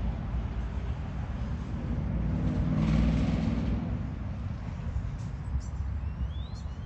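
Road traffic rumble, with one vehicle passing that swells to its loudest about three seconds in and then fades. A bird chirps a few times near the end.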